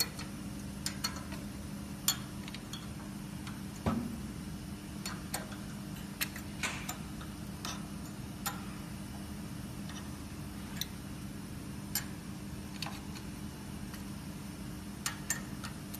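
Small irregular metallic clicks and taps as the two fixing screws of the quartz bar holder on an ACF/COF bonding machine are tightened, with one louder knock about four seconds in. A steady low hum runs underneath.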